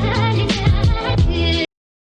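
Upbeat background music with a steady beat, cutting off abruptly near the end.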